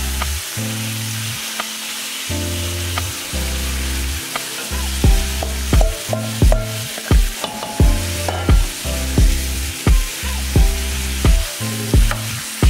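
Meat pieces sizzling as they fry in a stainless steel pot while a wooden spoon stirs them. Background music with a bass line plays over it, and from about five seconds in a regular beat comes in, loudest of all.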